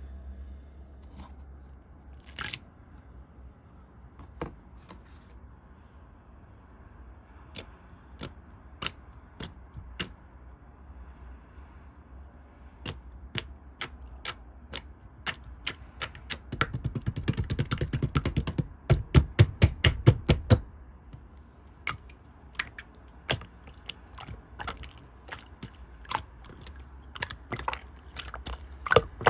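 Clear slime being squeezed and poked by hand, making scattered sharp clicks and pops. About two thirds of the way through comes a few seconds of fast, dense popping.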